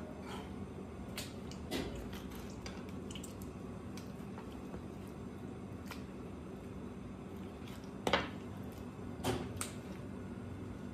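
A knife tapping and cutting on a plastic cutting board and wet squelches of raw squid being handled, with a few sharper knocks, the loudest near the end, over a steady low hum.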